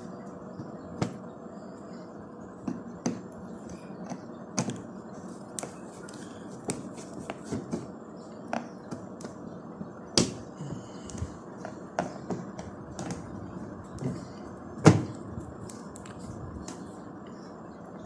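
Scattered light clicks and taps of a screwdriver and fingers working screws out of a washing machine's front panel, over a faint steady background noise. Two sharper knocks stand out, about ten seconds in and late on.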